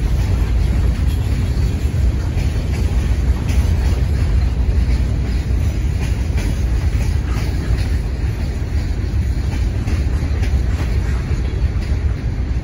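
Freight train boxcars rolling past: a steady low rumble with occasional faint clicks of the wheels.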